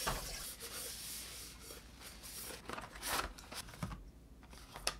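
Cardboard packaging and bottles being handled on a kitchen countertop: irregular rubbing, scraping and light clicking as the box is moved and opened.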